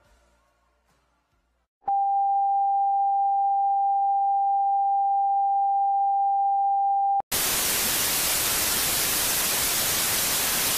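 Television channel sign-off: the last of the music fades out, then a single steady test tone sounds for about five seconds and cuts off abruptly into loud, even hiss of off-air static.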